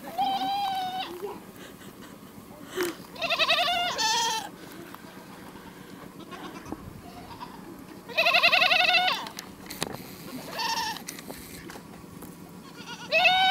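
Young goat bleating: about five loud calls a few seconds apart, most about a second long with a quavering pitch, one short.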